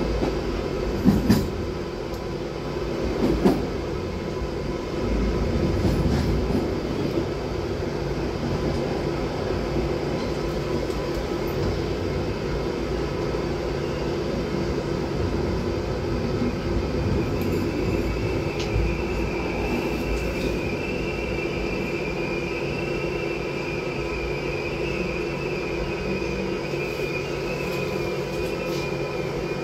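Intercity express train running through an underground tunnel, with a steady rumble and two sharp knocks from the wheels over points in the first few seconds. About halfway a high, steady brake squeal sets in as the train slows into the station platform.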